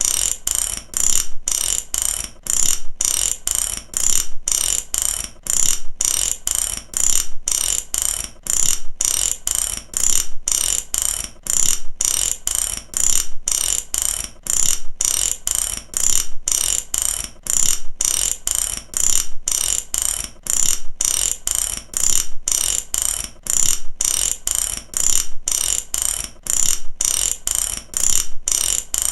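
Mechanic's ratchet wrench being worked back and forth, its pawl clicking rapidly on each swing. The swings repeat about once a second without a break.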